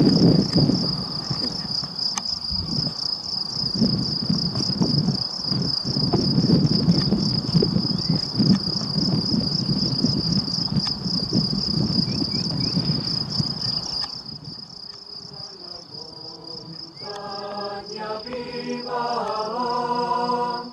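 A cricket chirping steadily in a fast, high-pitched pulse, over a low rushing noise that drops away about two-thirds of the way through. Near the end, music with moving pitched notes begins.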